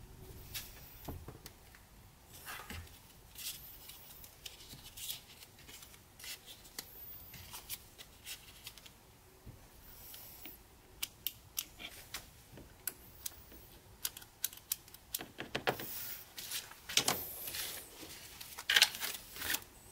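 Playing cards and a hot glue gun being handled on a workbench while cards are fitted under a board: scattered light clicks and short papery rustles, busier and louder near the end.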